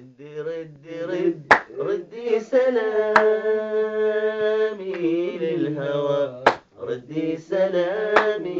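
A man singing unaccompanied in Arabic, with a long held, ornamented note in the middle, and a few sharp hand claps.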